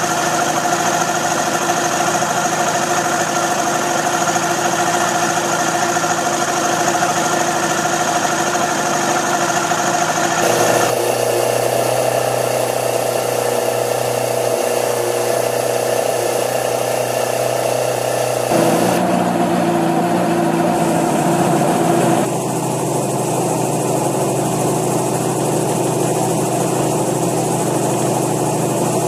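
1965 OMC 90 hp two-stroke boat engine running steadily at low speed. Its note shifts in steps about ten seconds in, again near nineteen seconds and at about twenty-two seconds.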